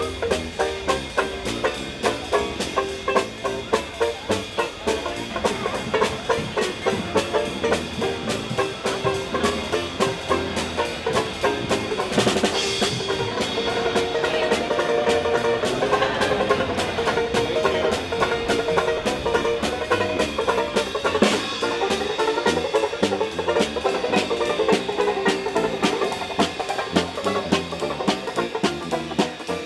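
Upbeat instrumental music driven by a quick, steady drum beat, with one louder cymbal-like hit about twelve seconds in.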